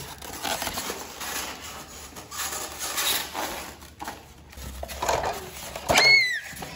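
Cardboard box and foam packaging rustling and scraping as a toy fire truck is pulled out of its packaging. About six seconds in, a sharp click and a short high yelp that falls in pitch.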